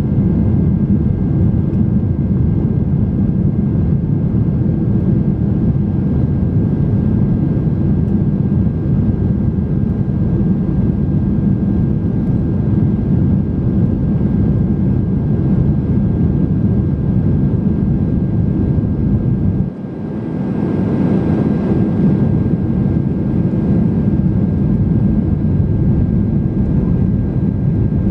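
Boeing 767-300 cabin noise in the climb after takeoff: a steady rumble of engines and airflow with a faint thin whine above it. About twenty seconds in, the rumble dips sharply for a moment and comes back with a few seconds of added hiss.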